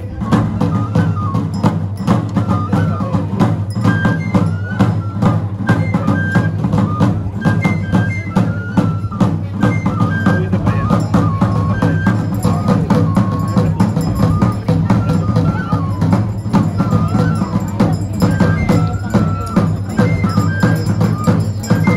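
Traditional folk dance music: large hand drums beaten in a steady, quick rhythm under a high melody of short stepping notes.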